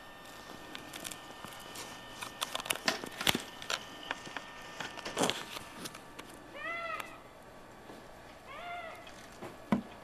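A run of sharp clicks and knocks, then two short meow-like calls about two seconds apart, each rising and falling in pitch.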